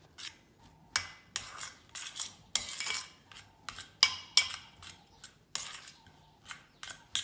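A metal utensil scraping and clinking against the sides of a stainless steel pot while stirring dry mashed potato, in quick, irregular strokes, several a second.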